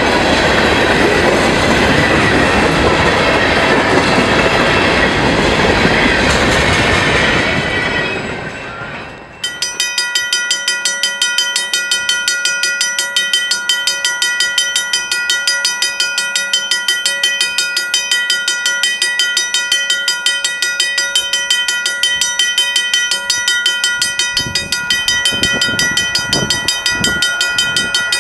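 Freight cars rolling past with their wheels clattering over the rail joints, fading away as the end of the train goes by. Then a railroad crossing bell ringing in fast, regular strokes, with low thumps coming in near the end as another train approaches.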